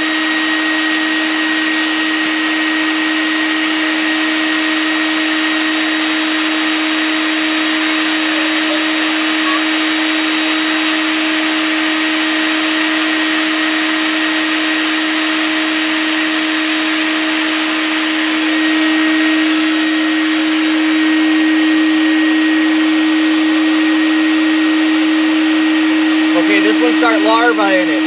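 Bee vacuum running steadily, its motor humming with a rushing hiss of air through the hose as bees are sucked up off the comb. It gets slightly louder for a few seconds about two-thirds of the way through.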